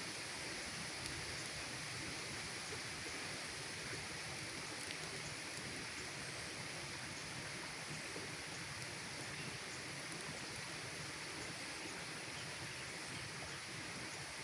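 Campfire burning: a steady hiss with faint, scattered crackles.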